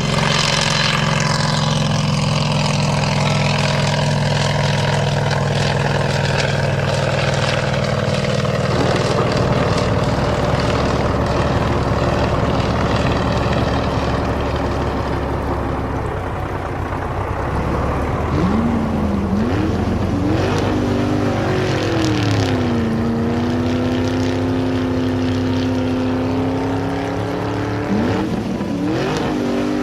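Cartoon vehicle engine sound effects: a steady engine drone, then from about eighteen seconds in engines revving up and down.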